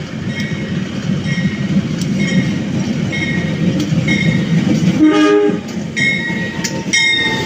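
CC 201 diesel-electric locomotive running with a steady low rumble, sounding one short horn blast about five seconds in. A short high tone repeats about once a second throughout.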